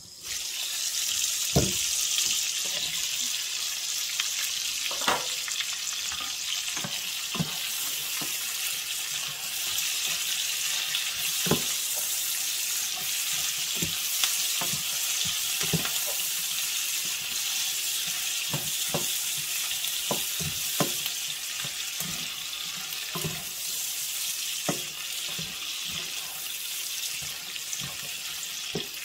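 Vegetables sizzling in a hot pan, the hiss jumping up suddenly as the lid comes off. A plastic spatula knocks and scrapes against the pan every second or so as they are stirred.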